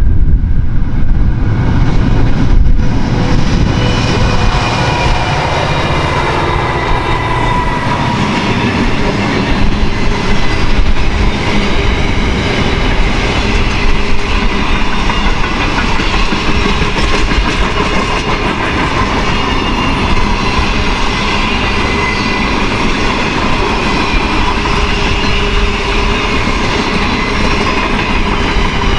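Long freight train passing: the NR and G class diesel locomotives go by in the first several seconds, then a long string of container wagons rolls past with a steady clickety-clack of wheels over the rail joints.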